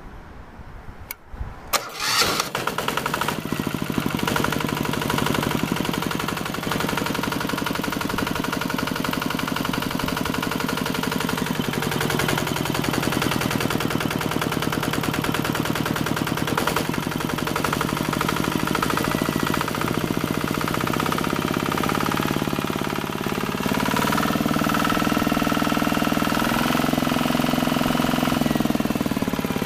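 Daekwang CP90 single-cylinder, 487 cc water-cooled four-stroke diesel engine starting about two seconds in, then running steadily. Its revs rise a little about three-quarters of the way through and ease back down near the end.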